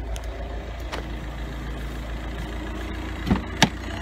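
2006 VW Jetta TDI's 1.9-litre four-cylinder turbodiesel idling steadily with a rhythmic wavering pulse, a 'whoa, whoa, whoa'. Two sharp knocks come close together near the end.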